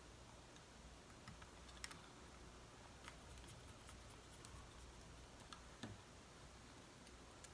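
Near silence with a few faint, scattered small clicks and taps from hand-work on an open laptop: small parts and tools being handled.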